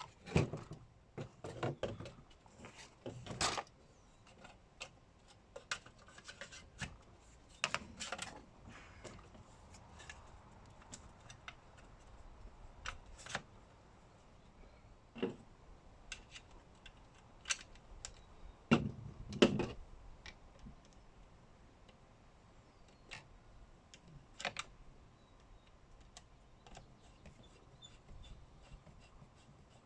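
Irregular clicks, taps and knocks of plastic housing parts and small tools being handled as a string trimmer is put back together, with louder clattering bunches about 3 seconds in, about 8 seconds in and near 19 to 20 seconds in.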